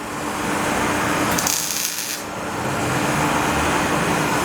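Welding arc crackling steadily, with a sharper hiss flaring for under a second about a second and a half in, over a steady low hum.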